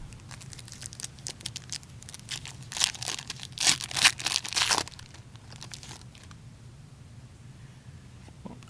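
Trading card pack wrapper being torn open and crinkled by hand, a run of irregular crackles, loudest in the middle.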